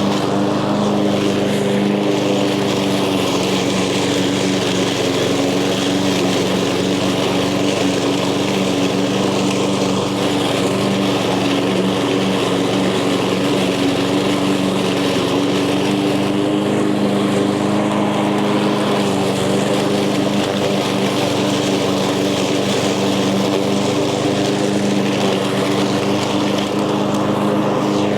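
Echo gas walk-behind lawn mower engine running steadily while mowing tall, thick grass.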